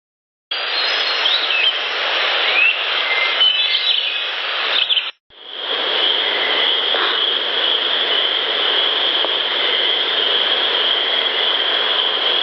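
Amplified field-recorder audio in woodland: a steady hiss with a few short bird chirps. After a brief cut it gives way to a steady, high-pitched drone, with one faint knock about seven seconds in.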